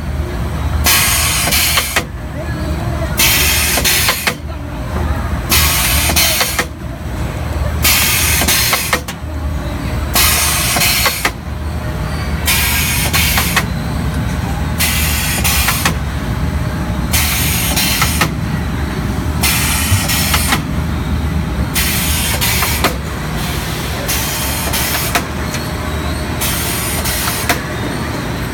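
STEEN ST 828 chicken drumstick deboning machine running, with a short hiss every second or two over a steady low hum.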